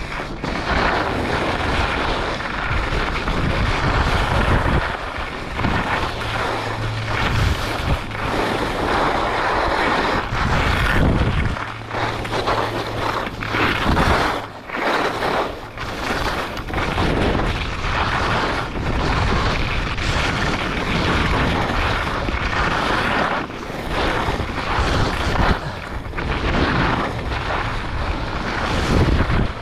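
Wind rushing over an action camera's microphone during a fast ski descent, mixed with the hiss and scrape of skis on packed snow, swelling and easing with the turns.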